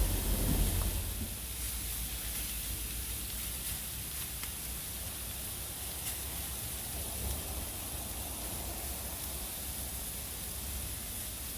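Glazed pork loins sizzling on a barbecue grill: a steady hiss. Under it runs a low wind rumble on the microphone, strongest in the first second.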